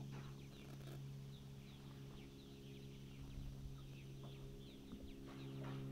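A steady low engine hum, with many short, high, falling chirps from birds scattered through it, two or three a second.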